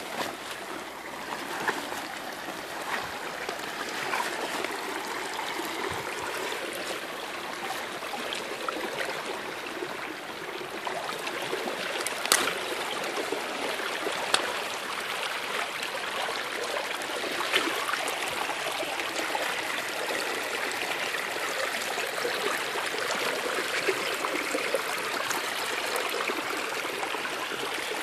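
Shallow creek flowing over sand and gravel: a steady rush of running water, a little louder from about halfway, with a few sharp clicks.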